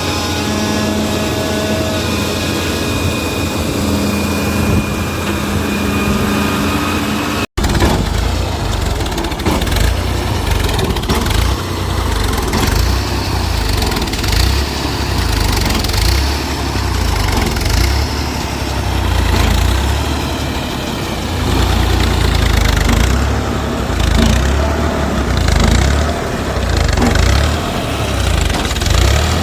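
Heavy diesel machinery running, a deep engine rumble that rises and falls. Before a brief cut-out about seven seconds in, steady tones shifting in pitch sit over it.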